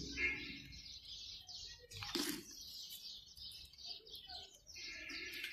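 Small bird chirping over and over in the background, fairly quietly, with a single knock about two seconds in.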